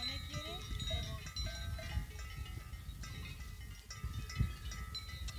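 Livestock bells ringing and clinking, several different pitches overlapping in an irregular pattern, with low wind rumble underneath.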